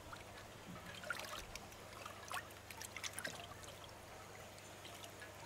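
Faint water trickling and lightly splashing, with a cluster of small splashes between about one and three and a half seconds in, over a steady low hum.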